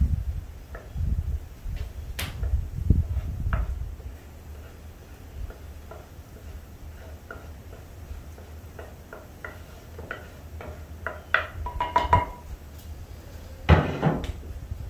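Earthenware crockery handled: mashed carrots being scraped out of a large clay bowl into a clay pipkin, with a few soft thumps, scattered clicks and knocks of pottery, and a louder knock near the end.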